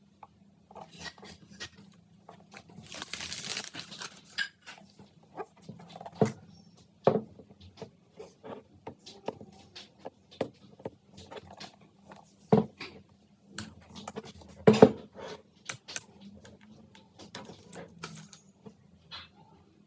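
Hands handling a boxed computer and its packaging: scattered taps, clicks and knocks, with a rustle about three seconds in and a sharper knock near the end.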